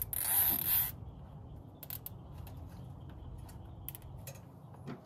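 Plastic zip tie being pulled tight through its ratchet: a loud, hissing rasp in the first second, then a few light clicks as it is worked around the battery's handle slot.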